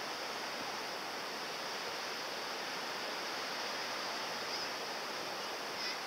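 Steady rushing outdoor ambience, an even hiss with a brighter high edge and no distinct event in it.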